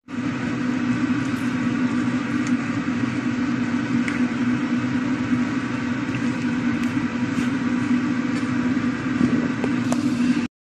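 Vegetables and fish cooking in a wok on the stove: a steady hum and hiss, with a few light clicks of a spatula against the pan. It cuts off suddenly near the end.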